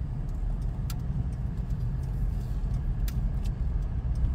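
Steady low rumble, with three or four light clicks scattered through it.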